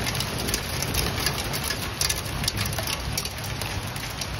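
Hail and rain falling on a patio and outdoor table: a steady rush of rain with many sharp ticks from hailstones striking, over a low rumble.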